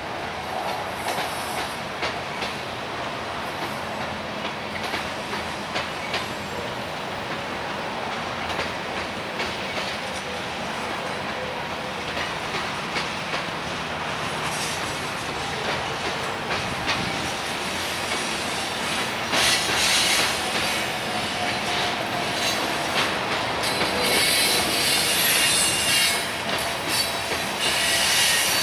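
Covered hopper cars of a grain train rolling past, wheels clicking steadily over the rail joints. From about two-thirds through, high-pitched wheel squeal rises over the rolling noise and grows louder.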